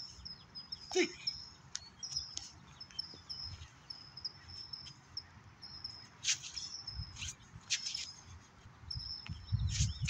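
Small birds chirping, one repeating a thin high note again and again, with a few short sharp sounds and a low rumble coming in during the second half.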